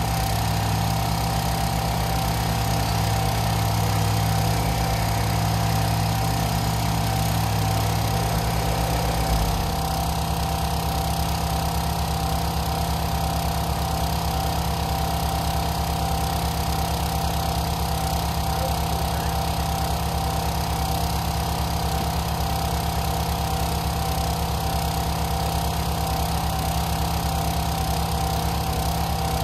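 Small engine idling steadily, its low rumble changing about nine seconds in.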